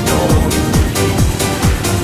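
Electronic dance music with a steady kick drum, about two beats a second, under hi-hats and held synth notes.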